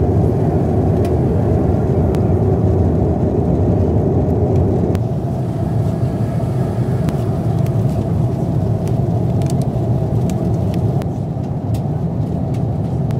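Steady jet airliner cabin noise in flight: the low rumble of an Airbus A330-300's engines and airflow, a little quieter after about five seconds. A few light clicks and crinkles come from handling a plastic-packed amenity kit.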